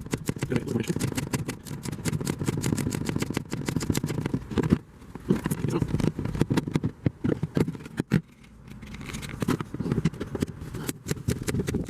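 Rapid, irregular clicking and scraping of a 5/16 socket tool working the self-tapping screws out of a metal battery box, over a low rumble from wind buffeting the microphone.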